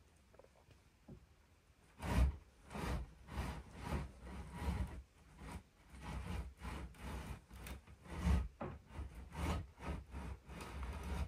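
A run of irregular rubbing and scraping noises, several a second, starting about two seconds in and stopping abruptly.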